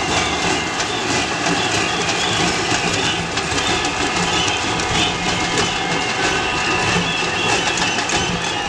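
Steady din of a large street protest crowd, with many short, high wavering tones over it.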